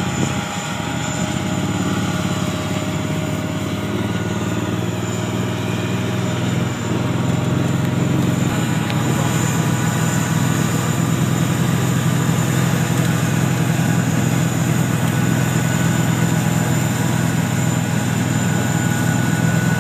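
Steady engine drone, growing louder and more even about seven seconds in.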